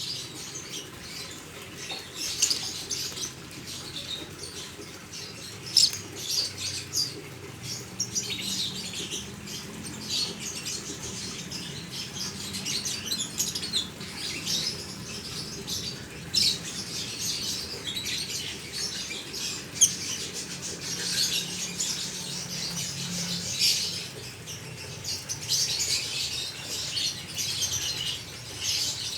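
Young lovebirds chirping rapidly and continuously, many short high calls overlapping, with a few sharp clicks.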